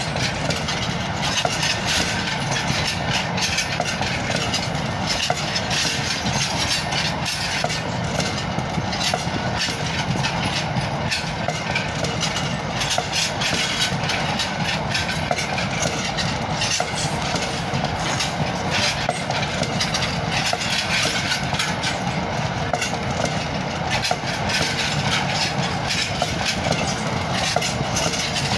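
A long freight train of bogie open box wagons rolling steadily past, a continuous rumble of wheels on rails broken by frequent clicks and knocks.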